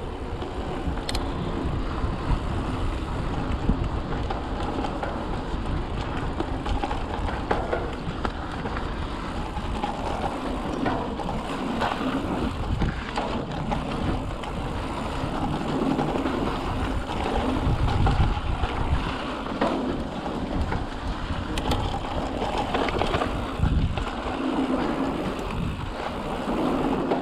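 A mountain bike rolling over a dirt trail: steady tyre rumble with scattered knocks and rattles from bumps, and wind buffeting the microphone.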